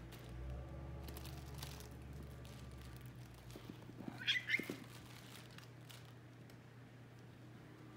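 American Shorthair cat giving two or three short, high-pitched squeaks in quick succession about halfway through, the squeaky call he makes instead of a normal meow when excited to play.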